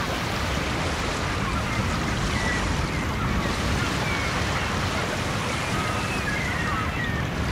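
Steady rushing noise, like surf or wind, with faint short high chirps scattered through it.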